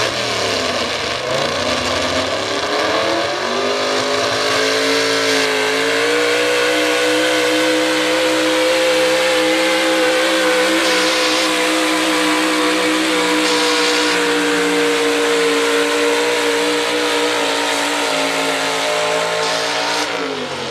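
A 4x4 pulling truck's engine at full load dragging the pulling sled: revs dip briefly, climb over the first few seconds, hold steady and high for about fifteen seconds, then drop off near the end.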